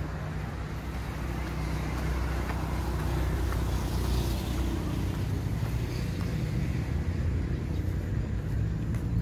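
Steady rumble of road traffic, swelling briefly about four seconds in as a vehicle passes.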